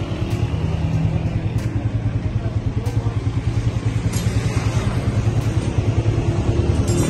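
A small engine running steadily with a rapid, even low throb.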